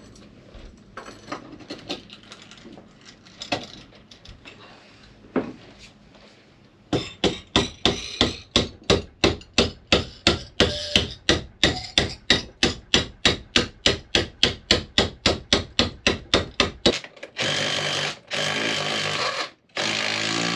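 Steady hammer blows, about four a second for some ten seconds, then a cordless drill running in two spells near the end, boring into the boat's timber frame.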